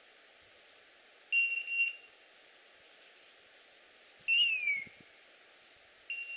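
Dog's beeper collar on an English setter sounding three times: a steady high beep about a second in, a high tone that falls in pitch about four seconds in, and another steady beep near the end.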